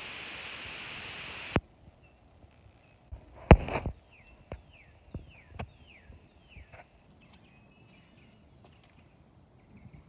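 A steady hiss that cuts off suddenly about a second and a half in, then a sharp knock, followed by a bird singing a run of short falling whistles, six or so in a row.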